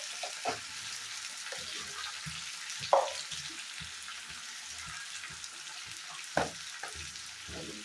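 Taro root pieces frying in hot oil in an iron kadhai: a steady sizzle with a few louder pops, the loudest about three seconds in and another a little past six seconds.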